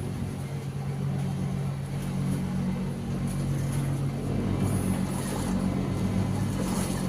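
An engine running steadily with a low hum, growing slightly louder.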